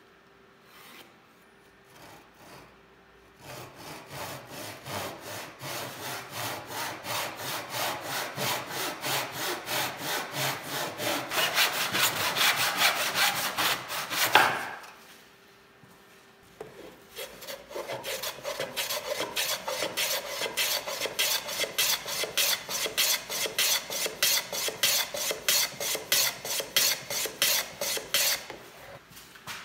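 Backsaw crosscutting a 1x12 common pine board by hand: even rasping push-pull strokes, about two and a half a second. The first cut runs about ten seconds and ends with a louder last stroke. After a short pause a second cut runs about twelve seconds.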